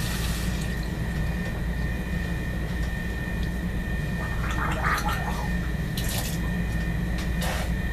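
A person coughing and gagging on a mouthful of cinnamon powder stuck in the throat. Short harsh coughs come around the middle and near the end, over a steady low hum.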